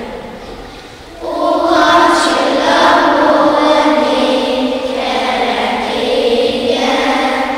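A group of children singing together, with a short pause between phrases about a second in before the singing starts again.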